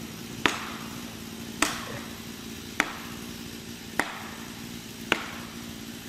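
Five evenly spaced blows of a maul, about one a second, each a sharp ringing strike, driving a felling wedge into the cut of a large tree.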